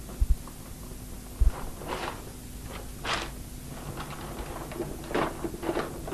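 Rustling of a bag and sheets of paper being handled and sorted, in several short bursts, after two dull thumps near the start.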